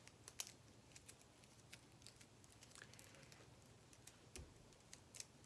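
Near silence with faint, scattered small clicks and light rustling as small items are picked up and handled.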